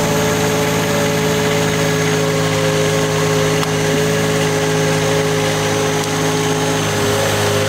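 Engine of a Weedoo aquatic weed-clearing boat running steadily at an even, low speed.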